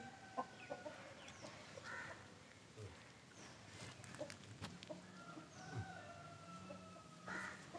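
Faint bird calls: a few short notes and two long held tones, over a faint low steady hum.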